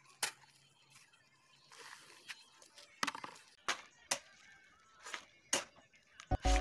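Steel shovel scraping across a concrete slab and scooping gravel, with sharp scrapes and clinks about once a second and a softer rasp of grit sliding between them.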